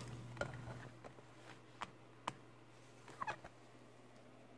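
Faint, scattered small clicks and taps from hands handling tools and a phone circuit board on a rubber repair mat, a couple with a brief squeak, over a steady low electrical hum.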